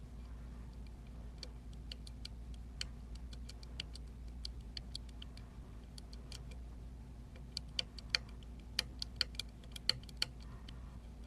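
Lock pick and tension wrench working the pins of an Emhart pin-tumbler lock: scattered light metallic clicks and ticks, with a denser run of sharper clicks about two-thirds of the way through.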